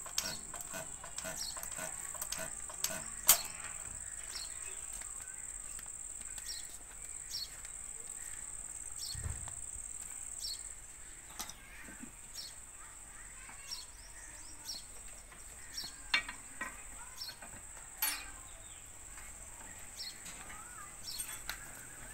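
Steady high-pitched insect chirring that weakens about halfway, with scattered clicks and a few sharper knocks from hands on the engine. The Ruston Hornsby diesel is not yet running.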